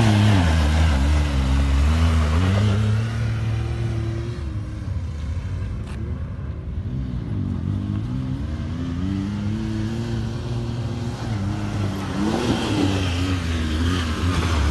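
Side-by-side UTV engine revving up and down as it climbs a rocky trail. It is loudest at the start and again near the end, and eases off in the middle.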